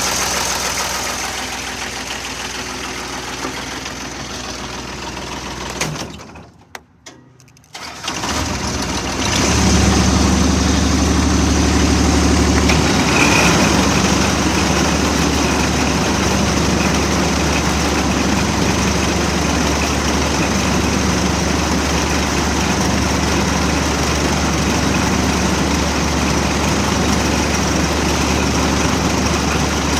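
Grasshopper 928D zero-turn mower's diesel engine running, stopping for about two seconds, then starting again about 8 seconds in and running steadily to the end.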